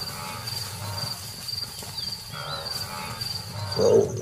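Night savanna ambience: crickets chirping in a steady, regularly pulsed high trill, with other animal calls repeating beneath it. A brief louder low sound stands out near the end.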